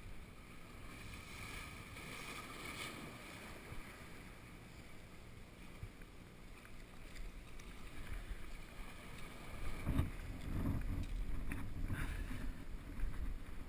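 Sea surging and washing over a rock ledge, with wind buffeting the microphone. About ten seconds in it grows louder, with low rumbling and a few knocks.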